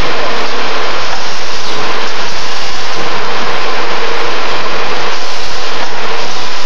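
Steel wire ring forming and welding machine running: a loud, steady, even machine noise with a faint steady tone through it.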